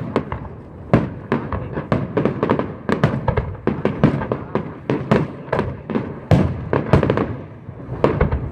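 Aerial firework shells bursting overhead in a rapid, irregular run of sharp bangs, a few a second, with the loudest reports about a second in, at about four seconds and around six to seven seconds.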